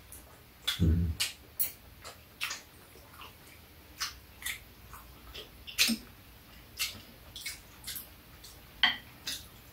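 Close-up eating sounds: wet chewing and lip smacks, with light clicks of metal chopsticks against the dishes, coming irregularly.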